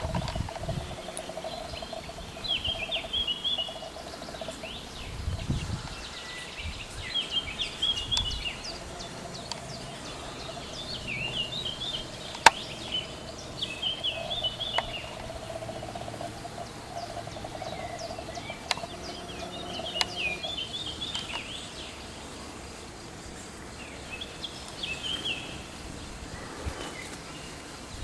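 A songbird singing short, twittering phrases every couple of seconds, with a steady hum underneath that fades in and out. A single sharp click is heard about halfway through.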